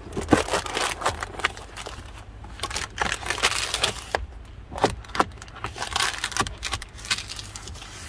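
A WeatherTech foil-faced car window sunshade crinkling and crackling as hands press and smooth it into the door's window frame, with irregular clicks and taps throughout.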